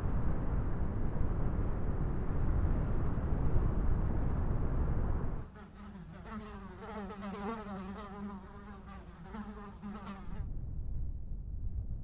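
Strong desert wind blowing, cutting about halfway through to a fly buzzing close by for about five seconds, its pitch wavering, then a lower, quieter wind.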